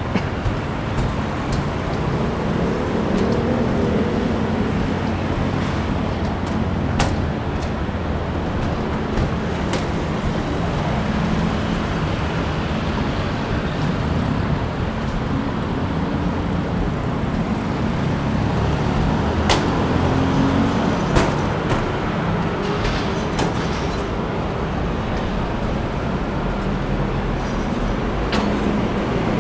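Steady road traffic noise, a continuous rumble of passing vehicles, with a few sharp clicks.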